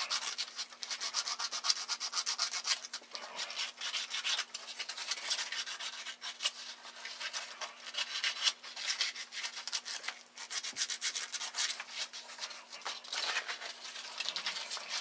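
Quick, repeated scratchy strokes of emery cloth rubbed by hand over a Mosley TA-33 antenna trap coil, scouring white aluminium corrosion off the coil wire and its connection. The strokes ease off briefly about ten seconds in.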